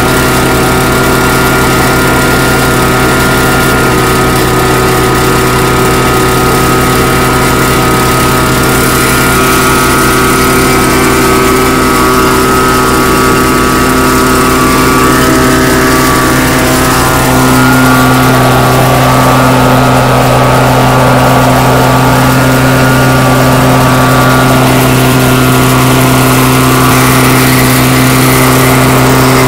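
Engine idling steadily with an even low throb. From about 17 seconds in, a rushing hiss joins it: the preheating burner flame heating the rail ends at the thermite weld mould.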